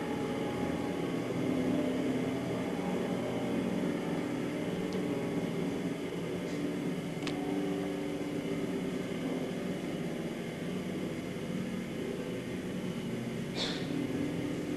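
Contemporary ballet music for chamber ensemble and electronics: a sustained low drone whose pitches shift every few seconds. A few soft high strikes sound over it, the clearest one near the end.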